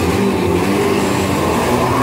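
Stunt car engine revving up as the car pulls away, its pitch rising through the second half.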